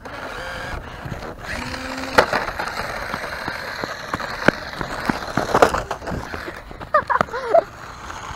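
Radio-controlled toy car driving over pavement and grass: a steady rough rolling and rattling noise with a few sharp knocks, and some short, quickly bending whines near the end.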